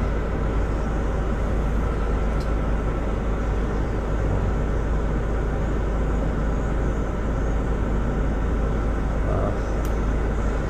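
Hyundai D4CC four-cylinder diesel engine of a Mighty EX8 GTL truck idling steadily at about 700 rpm, heard from inside the cab.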